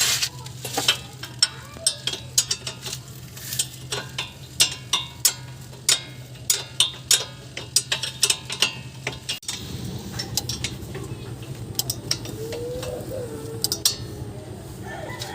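Sharp metallic clicks and clinks of hand tools at work on a car's front wheel hub assembly, one or two a second, over a steady low hum. About nine seconds in, the sound cuts to a steadier hum with no clicks.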